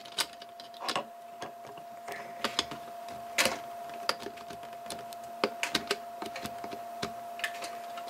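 Small plastic clicks and taps as a laptop's plastic hinge cover is handled and pushed against the screen assembly, with one sharper click about three and a half seconds in, over a steady faint whine.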